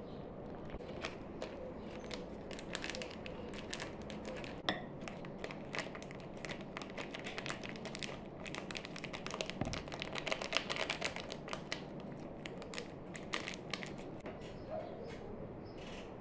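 Small plastic food-colouring sachets crinkling as they are flexed and tapped to shake powder into a bowl, a run of many light crackles and clicks that is busiest about halfway through.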